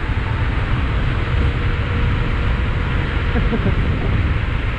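Steady wind rush on the microphone from riding an electric bike at speed, heaviest in the low end.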